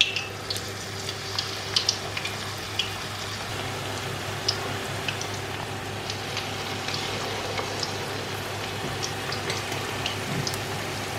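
Onion bhajis deep-frying in hot oil in a wok: a steady sizzle with scattered pops and crackles, over a low steady hum.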